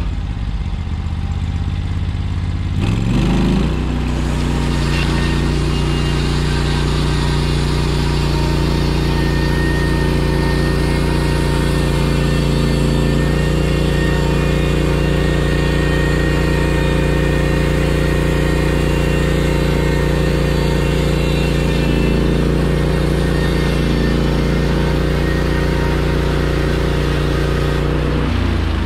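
Portable sawmill's engine running: idling at first, throttled up about three seconds in to a steady higher speed, then dropping back toward idle near the end.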